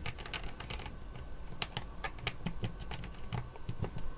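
Plastic Lego pieces and breadboard bus-bar strips being pulled off and pressed back onto a Lego board: a run of irregular sharp plastic clicks and snaps.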